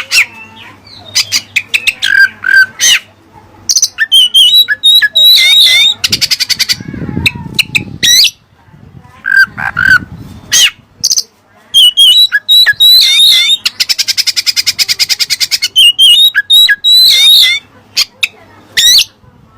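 Oriental magpie-robin (kacer) singing a loud, varied song of sharp whistled notes and sweeps, broken twice by long, rasping buzzy trills. The song is filled with mimicry of the cililin's song.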